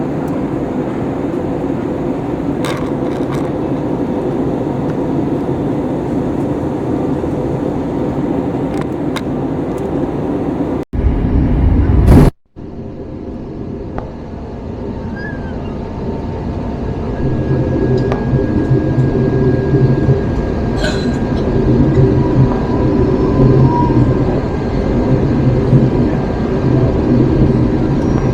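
Steady cabin noise inside an Airbus A321 airliner, cut off twice briefly about eleven and twelve seconds in, after which a low rumble grows stronger.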